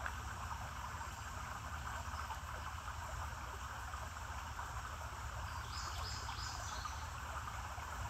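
Steady outdoor ambience of an insect chorus mixed with running creek water, with a few short high chirps about six seconds in.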